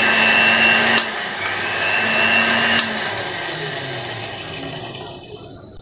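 Countertop electric blender grinding a wet paste of mint, green chilies, lemon juice and spices, its motor running with a steady high whine. It pauses briefly about a second in and runs again. About halfway through it is switched off and spins down, fading out.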